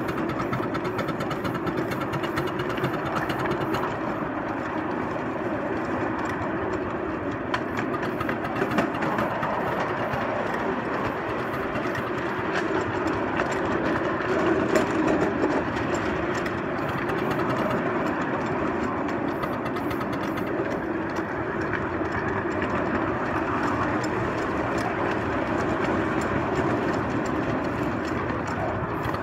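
Model 2-6-0 Mogul locomotive running along garden railway track: a steady mechanical running noise with faint clicks throughout.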